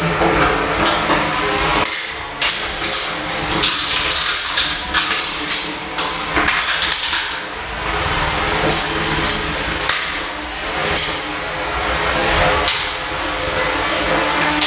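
Small radio-controlled combat robots fighting: electric motors whining, with a steady high tone, over frequent clattering knocks and bangs of the robots hitting each other and the arena.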